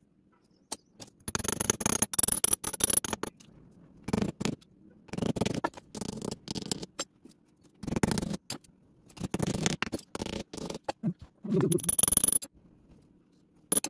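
Casting patterns being pressed and tapped into moulding sand with a metal rod and a hammer: spells of gritty scraping and quick tapping, six or so, separated by short pauses.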